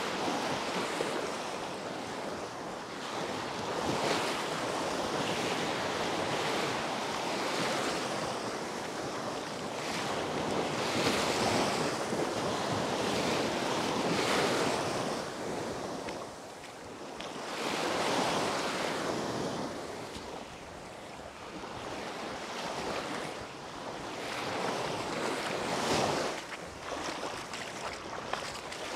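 Small Baltic Sea waves breaking and washing up on a sandy shore, the surf swelling and fading every few seconds, with wind on the microphone.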